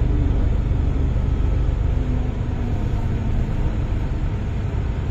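MTR Island Line M-Train electric multiple unit running through the tunnel, heard from inside the car. Its wheels and motors make a steady rumble.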